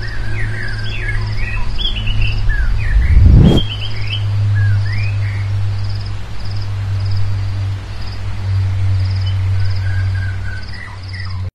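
Forest ambience: birds chirping in short rising and falling calls, mostly in the first half and again near the end, with an insect chirping steadily about twice a second, over a steady low rumble. A brief loud thump about three and a half seconds in.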